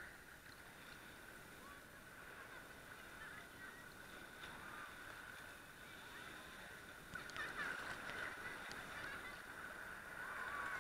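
Faint, muffled sloshing and bubbling of choppy sea water around a camera at the water surface, with many short little chirps from bubbles. It gets a little louder about seven seconds in and again near the end as waves wash over.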